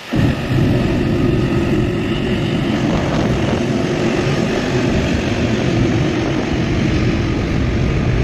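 Airbus A380 jet engines running at taxi power as the aircraft rolls past: a loud, steady low rumble with a faint whine above it. It comes in suddenly just after the start.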